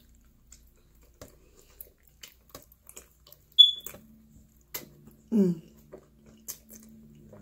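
Mouth noises of someone eating pizza: soft chewing clicks and smacks. A short, sharp high-pitched squeak about three and a half seconds in is the loudest sound, and a brief falling voiced sound follows a couple of seconds later.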